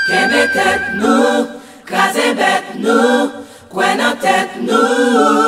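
Several voices singing together without instruments, a choir-like chant in short phrases with brief breaks about one and a half and three and a half seconds in.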